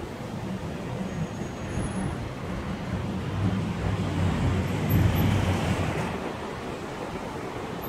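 Road traffic noise, with a low vehicle rumble that swells to its loudest about five seconds in and then fades, like a heavy vehicle passing.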